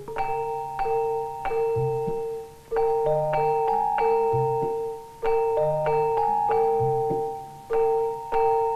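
Film score music on tuned mallet percussion: struck, ringing notes in a phrase that repeats every two to three seconds, over a lower note that sounds with each phrase.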